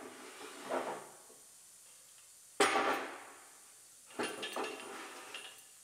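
Heavy steel clamp brackets clanking as they are slid and set onto the rails of a collision frame bench. There is a loud clank about two and a half seconds in, then a quick cluster of lighter clanks a little after four seconds.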